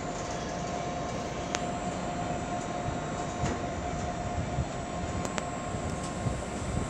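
Great Western Railway Class 800 Hitachi intercity train pulling away from a platform: a steady running sound with a held whine and a few light clicks.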